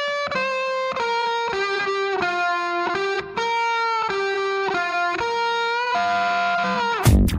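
Background music: a solo melody of held notes with no beat under it, until the full beat comes back near the end.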